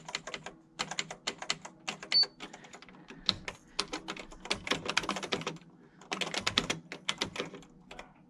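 Keys of a Sears 10k40 electronic daisy wheel typewriter being typed in irregular runs of quick clicks with short pauses between them. A short high beep sounds about two seconds in, the kind the machine gives at a misspelled word.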